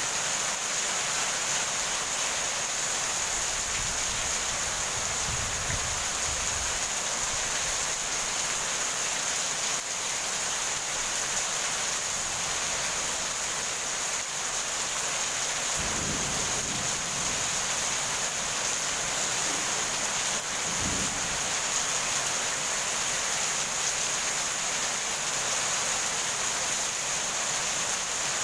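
Heavy rain falling steadily, with low rumbles of thunder three times: about four seconds in, near the middle, and again about two-thirds of the way through.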